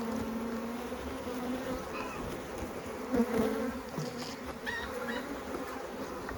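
Honeybees buzzing around an opened beehive: a steady, wavering hum, with single bees swelling louder now and then as they fly close.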